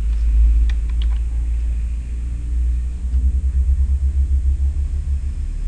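Low, steady background rumble that turns pulsing from about three seconds in, with two or three faint mouse clicks about a second in.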